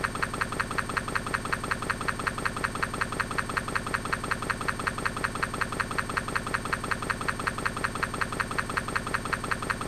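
A steady buzz that pulses rapidly and evenly, about nine pulses a second.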